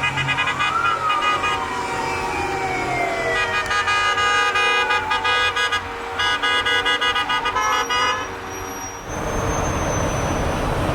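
Many vehicle horns honking together in jammed traffic: long held notes at several pitches that stop and start, with a wailing tone that rises and falls slowly among them. The honking stops about eight seconds in, leaving traffic noise.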